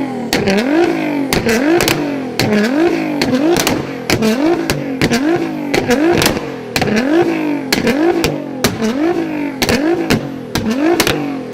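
Modified car engine revved in quick repeated throttle blips, more than a dozen in a row at a bit over one a second. The pitch climbs and drops each time, with a sharp exhaust bang in every cycle.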